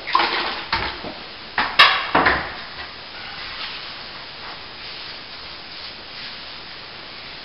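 Knocks and a metallic clatter as an aluminium stepladder is climbed and tools are handled, with the sharpest knock about two seconds in. After that comes a quieter, steady scratchy noise as work goes on at the plaster.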